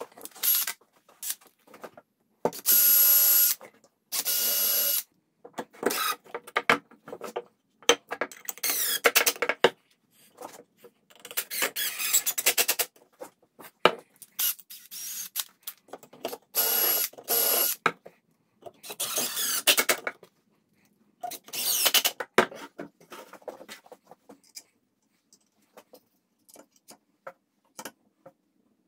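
Yellow-and-black DeWalt cordless drill driving screws into pine boards in repeated short bursts of motor whine, each lasting about one to two seconds, with clicks and knocks of the wooden pieces being handled between bursts. The bursts stop a few seconds before the end, leaving only faint handling clicks.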